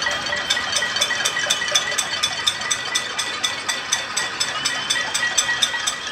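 Pots, pans and basins being banged by many people across surrounding apartment blocks: a steady metallic clatter of several strikes a second. It is a nightly pot-banging noise protest.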